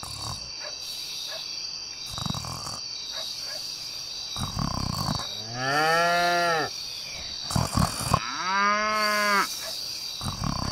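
A cow mooing twice, two long calls a few seconds apart, each rising and then dropping away in pitch, over a steady high-pitched background whine.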